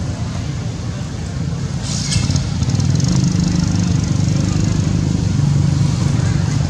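A motor vehicle's engine running nearby, a steady low rumble that grows louder about two seconds in, with a brief hiss at the same moment.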